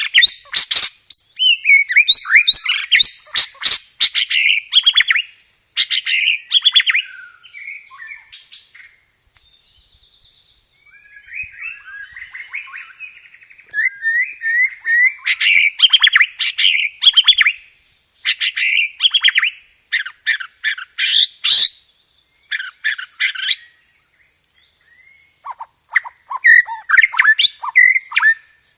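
White-rumped shama singing loud, fast rolling phrases of rapid repeated notes and whistles in long bursts with short pauses, its song including sparrow-like fighting chatter. A steady thin high tone runs underneath.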